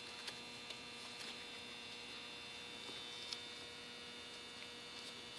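Steady electrical hum with several fine steady tones, broken by a few faint light clicks, about four of them.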